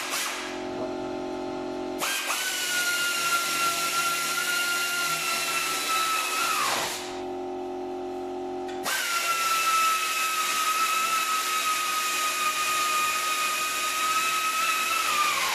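Cordless power tool with a socket driving bolts into a car's front panel: two long runs of motor whine, the first starting about two seconds in and the second about nine seconds in, each sagging in pitch under load and dropping off as the bolt seats.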